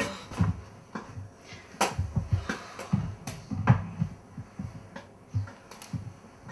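Glasses and jars being handled on a counter: a few sharp clinks and knocks, the loudest a little under four seconds in, with soft low thuds between.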